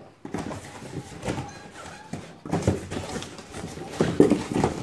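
Cardboard packaging rustling and scraping with irregular knocks as a coilover strut is worked out of its shipping box. The knocks come loudest near the end.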